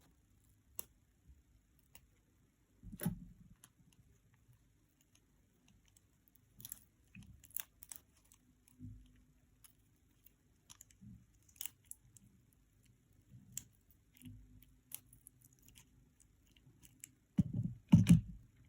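Scattered small clicks and taps of tools handling a mobile phone's parts during repair, with a couple of louder low thumps near the end.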